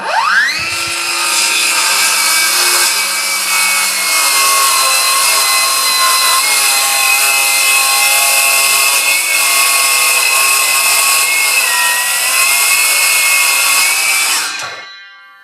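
Ryobi R18CS7 18V brushless cordless circular saw, running on a standard 5 Ah battery, spinning up and cutting through wood. Its steady high whine holds for about fourteen seconds, dips slightly in pitch about twelve seconds in, then the saw switches off and winds down.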